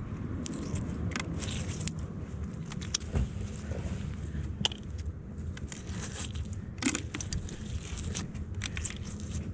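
Scattered clicks, clinks and crackles of small metal magnet-fishing finds being handled, over a steady low rumble.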